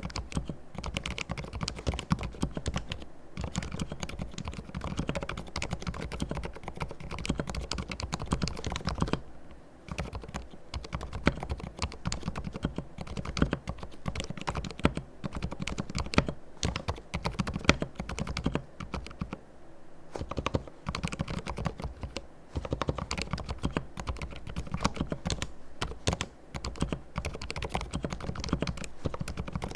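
Typing on a mechanical keyboard with fully lubricated silent red (linear) switches: a continuous run of soft, dull keystrokes at a fast irregular pace, pausing briefly twice.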